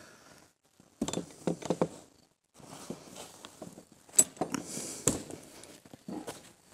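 A heavy wooden gate and boards being pushed and handled: a string of wooden knocks, scrapes and rattles, with a cluster of knocks about a second in and the sharpest knock about four seconds in.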